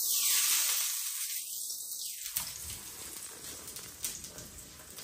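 Gram-flour pancake (besan chilla) sizzling in a hot flat pan as oil is brushed onto it: an even, high sizzle that is loudest at the start and fades over the next few seconds.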